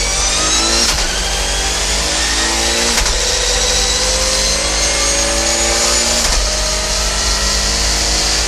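Audi A4 Quattro Super Touring race car's 2-litre naturally aspirated four-cylinder engine accelerating hard through the gears. Engine speed climbs and drops with an upshift of the sequential gearbox about one, three and six seconds in, then climbs again.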